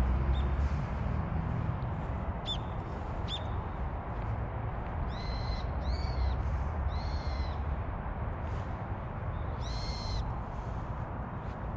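Birds calling: two short high chirps, then four longer calls, three close together and a last one a few seconds later, over a steady low rumble.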